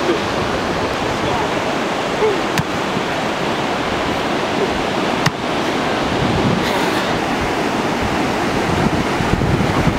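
Ocean surf breaking and washing onto a beach in a steady rush, with two short sharp clicks about two and a half and five seconds in.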